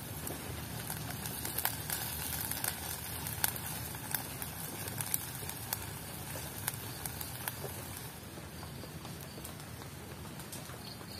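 Grated coconut sizzling in a pan as its oil is cooked out, a steady hiss with scattered sharp pops that thin out after about eight seconds.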